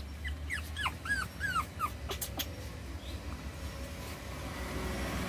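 Pug puppy whimpering: a quick run of about eight short, high, arching whimpers in the first two seconds, followed by a couple of faint clicks.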